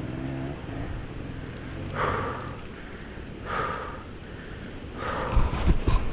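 Enduro dirt bike engine idling low, with three heavy breaths about a second and a half apart. Near the end the engine revs up loudly with some clatter.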